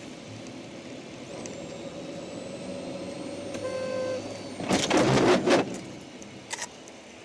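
Tyre and rain noise of a car driving on a wet highway, with a car horn sounding briefly about three and a half seconds in. Then comes a loud collision about a second long as an SUV sideswipes the car, followed by a couple of short knocks.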